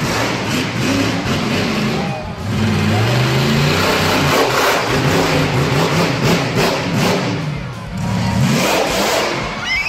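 Monster truck engine revving hard in repeated bursts as the truck drives over crushed cars, its pitch climbing about three seconds in.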